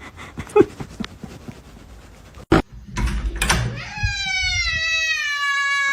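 A sharp knock about halfway through, a brief scuffle, then a domestic cat's long drawn-out meow that starts near the end and slowly falls in pitch.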